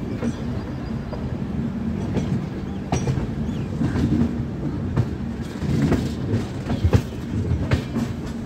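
Wheels of a moving passenger train clattering over rail joints and points, irregular knocks over a steady low rumble, heard from the open door of a coach. The knocks come thicker from about three seconds in.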